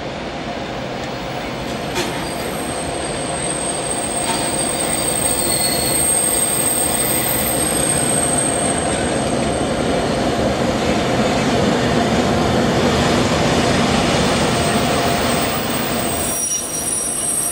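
Nohab MY-class diesel locomotive's EMD two-stroke engine working as the locomotive pulls away slowly. It grows louder as it passes close, with faint high wheel squeal over the points, then drops off near the end.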